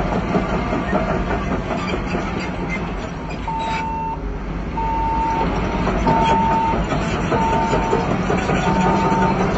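Heavy diesel earthmoving machine running steadily, and about a third of the way in its reversing alarm starts beeping, one even-pitched beep roughly every second and a bit: the machine is backing up.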